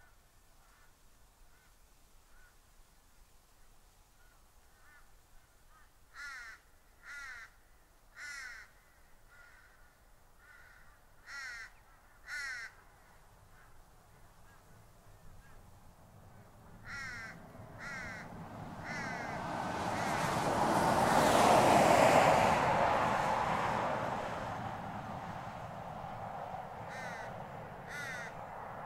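A bird gives about ten short calls in groups of two and three. Partway through, a vehicle passes on the road, growing loud to a peak just after the middle and then fading away.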